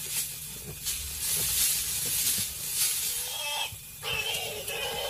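Spotted hyenas scuffling at a warthog's burrow: rough, breathy hissing snarls and scrabbling in dusty ground come in repeated bursts, and high squealing calls start near the end.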